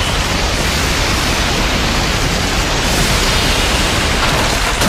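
Loud, steady rushing hiss with no clear tune or voice in it.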